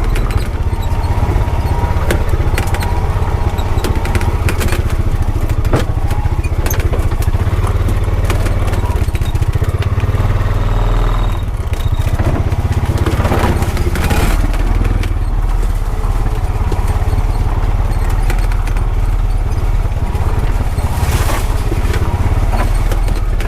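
Honda Pioneer 520 side-by-side's engine running steadily under way over rough ground, with frequent short knocks and rattles.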